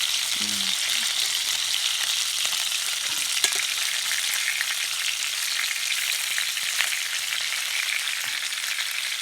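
Pike frying over a campfire: a steady sizzle with a few sharp pops and crackles.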